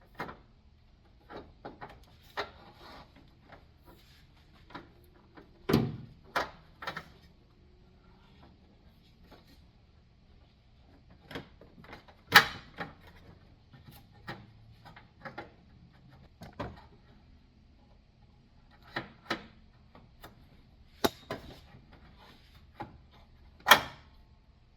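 Irregular clicks, knocks and rubbing from the Honda Accord's metal hood prop rod as it is worked loose and pulled out of its grommet in the frame, with a few louder knocks, the loudest about halfway through.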